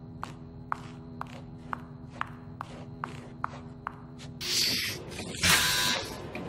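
Footsteps of hard-soled shoes clicking on a hard floor, about two steps a second, over a steady low hum. About four seconds in the steps stop and two loud bursts of rushing noise follow, the second the louder.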